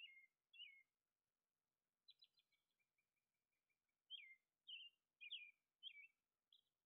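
Faint bird chirping: short notes that slide downward, repeated about every half second, with a run of softer quick notes a few seconds in.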